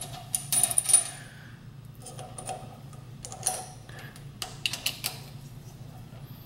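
Light metal clinks and clicks from handling a ball-screw bearing block and its screws on a mill table. They come in several short clusters; the loudest is about half a second to a second in and has a brief ring. A low steady hum runs underneath.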